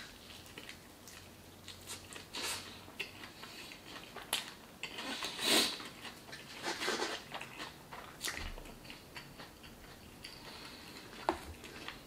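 Close-miked chewing of a mouthful of carne asada burrito, with irregular wet smacks and mouth clicks.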